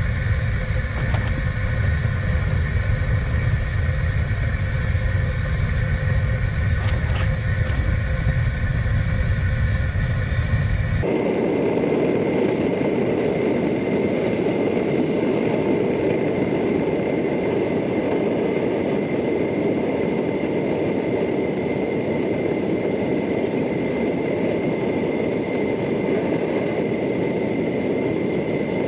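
Gas torch flame burning with a steady, rumbling rush. About eleven seconds in the sound abruptly turns higher and thinner as it is sped up fourfold.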